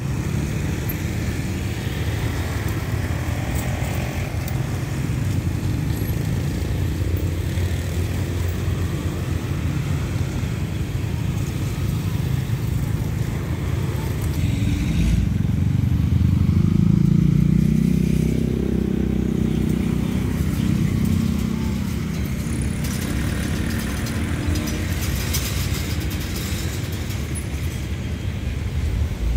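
Motorcycles and road traffic going over a railway level crossing, one engine rising and falling in pitch as it passes about midway, over a steady low rumble of wind on the microphone.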